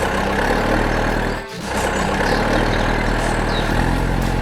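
Vehicle engine running steadily, with a brief break about a second and a half in.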